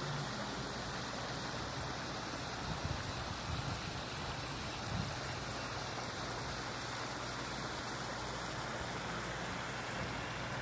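Steady rush of water splashing from a swimming pool's rock waterfall feature.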